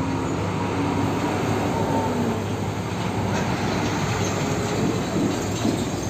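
Heavy fuel tanker truck, a tractor unit pulling a tank semi-trailer, driving past close by: steady engine hum with road and tyre noise.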